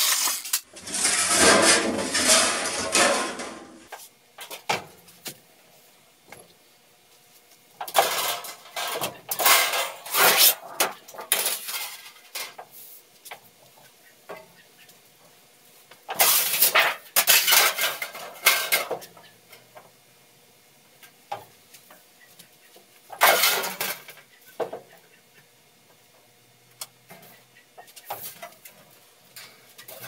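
Galvanized sheet steel being handled and folded on a hand-operated sheet-metal bending brake. There is a noisy scrape lasting a few seconds at the start, then several clusters of metallic clanks and rattles.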